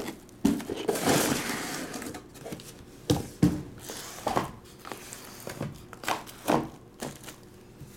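Trading-card boxes and their packaging being handled on a table: rustling and crinkling wrap and cardboard, with several sharp knocks as boxes are set down.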